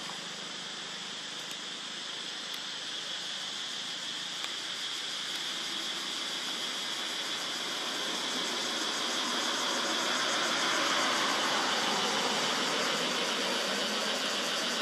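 Steady outdoor background hiss with a steady high band in it, swelling a little louder about two-thirds of the way through.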